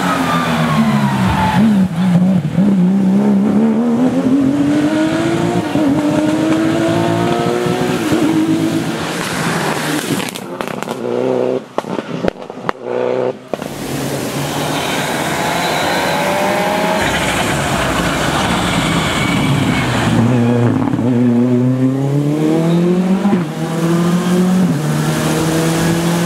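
Two rally cars at speed on a wet asphalt stage. First a Porsche 911's flat-six drops in pitch into the corner, then climbs steadily as it accelerates away. After a short break a second rally car approaches, dips in pitch under braking around the middle of its run, and revs back up, holding a high steady note near the end.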